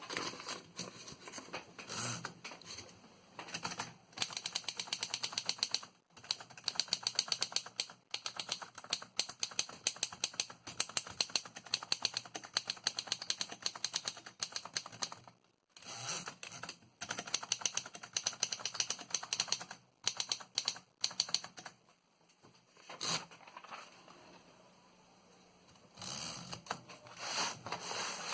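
A 1924 Underwood 3-bank portable typewriter being typed on: long runs of quick key strikes clacking, broken by short pauses, then a few separate strokes near the end.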